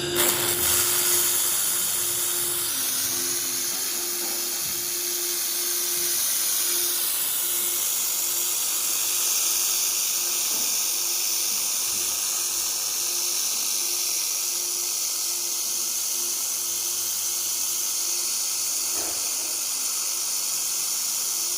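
1500 W Lightweld handheld laser welder running on 4mm mild steel: a steady high hiss of shielding gas and weld that starts at once and holds unbroken, over a steady low hum from the machine.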